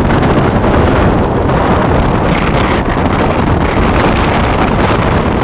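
Strong wind buffeting the microphone: a loud, steady rumble of noise with no distinct events.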